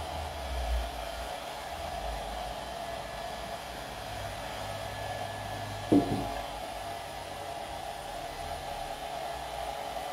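Hand-held hair dryer blowing steadily, drying the glued decoupage on a tin can. About six seconds in, a single sharp knock as the metal can is set down on the table.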